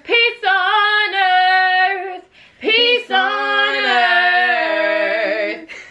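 A young woman singing unaccompanied: long held notes with vibrato in two phrases, with a short break a little past two seconds in, stopping just before the end.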